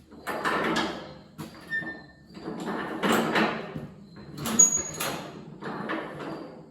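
1928 Farmall Regular's four-cylinder engine being turned over with the hand crank, choke on, in about five slow pulls, each a noisy swell with some clicks. The engine does not fire: these are preliminary cranks to draw fuel into it.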